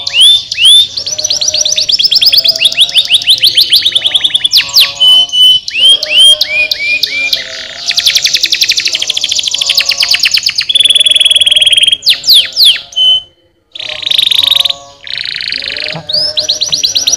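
Domestic canary song: fast rolling trills and runs of quick rising whistles, changing from one phrase to the next. It breaks off briefly about thirteen seconds in.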